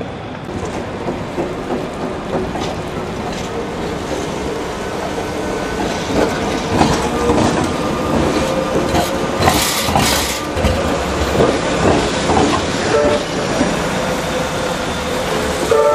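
Metrolink T-68 tram passing close by, its wheels clattering over rail joints and points. The sound grows louder about six seconds in and is loudest around the middle.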